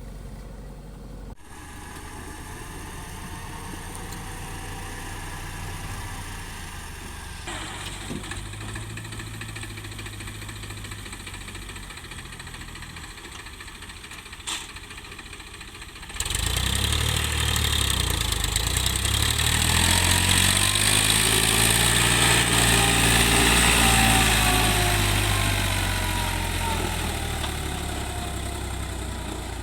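Heavy diesel engine running at a steady low drone that changes abruptly a couple of times. About halfway through it becomes much louder and revs up, then slowly winds back down.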